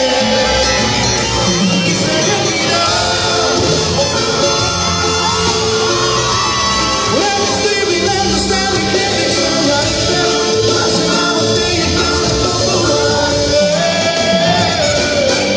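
Live mariachi-style band with trumpets, violins and guitars backing a male singer, amplified through an arena sound system, with some shouts over the music.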